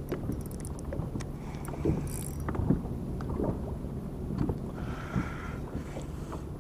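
Small knocks and clicks from a spinning reel being wound and a rod handled in a kayak, over water lapping at the hull and a steady low hum. The loudest knocks come about two seconds in, and a short higher-pitched tone sounds about five seconds in.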